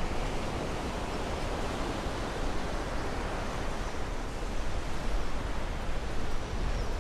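Steady rushing noise with a deep rumble underneath, an ambient soundscape background with no distinct events.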